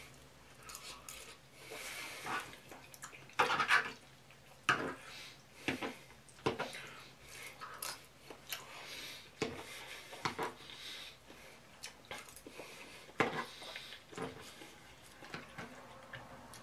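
Metal fork clinking and scraping against a plastic bowl in short, scattered strokes a second or so apart, with soft chewing in between.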